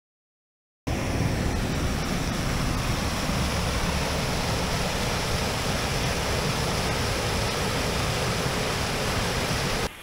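Steady rush of water from a waterfall, starting abruptly about a second in and cutting off sharply near the end.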